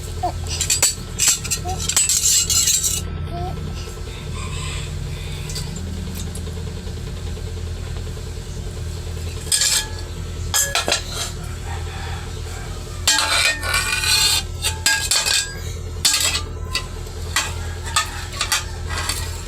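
Metal pot and ladle clattering and scraping as a toddler stirs and bangs them, in irregular bursts with pauses between, over a steady low hum.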